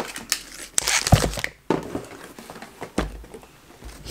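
Rummaging in a cardboard box of packaged products: packaging rustling and crinkling, with a few short, irregular knocks and clicks as items are handled.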